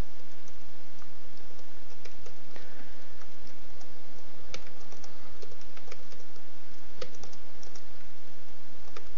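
Typing on a computer keyboard: irregular keystroke clicks, with a few sharper strokes about halfway through and near the end, over a steady background hiss.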